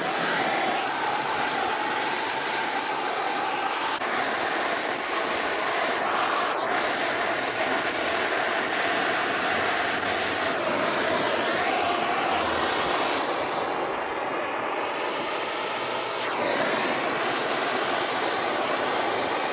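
Handheld gas torch burning with a steady hissing rush of flame, played over carved wood to scorch and darken painted letters.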